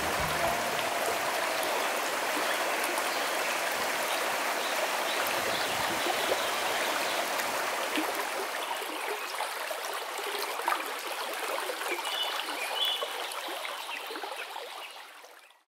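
Shallow mountain stream running over stones, a steady rushing of water that fades out near the end.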